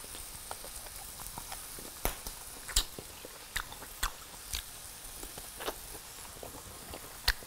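Mouth sounds of someone eating grilled pork chop off the bone: chewing with short sharp lip smacks and clicks every second or so over a faint steady hiss.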